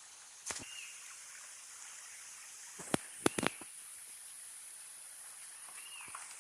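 Footsteps on rough ground, a few sharp steps about half a second in and a quick cluster around the middle, over a steady high hiss, with a short bird chirp twice.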